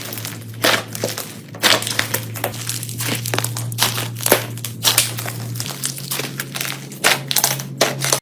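Slime being squeezed and worked by hand, making a dense irregular crackling of small pops and crunches, over a steady low hum.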